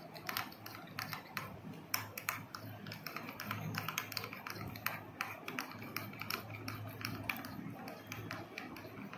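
A metal spoon stirring thickening glue slime in a glass bowl: quick, irregular clicks and taps of the spoon against the glass.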